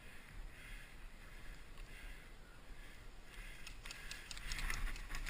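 Soft rustling of a player's clothing and gear, turning into louder rustling with crackly crunching steps through undergrowth from about four seconds in.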